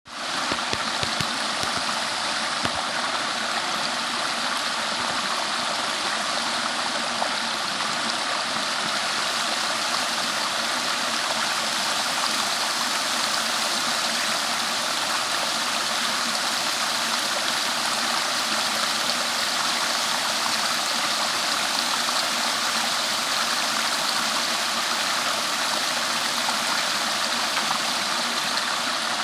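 Water of a stream flowing, a steady, even noise that does not change.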